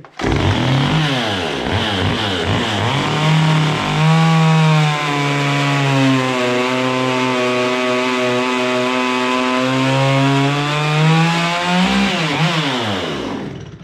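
Two-stroke chainsaw running at full throttle while cutting an angled slice down the back of a log. The pitch climbs at the start and wavers for the first few seconds, holds steady through the middle, then falls as the throttle is let off near the end.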